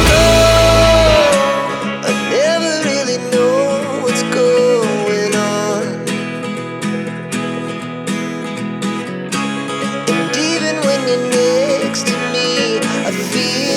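Background music led by guitar, with plucked strings and a melodic line over a steady picked rhythm; the deep bass drops out about a second in.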